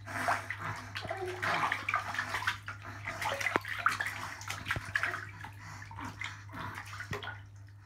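Shallow bathwater splashing and lapping as a baby lying in a bathtub moves its arms, in small irregular splashes over a steady low hum.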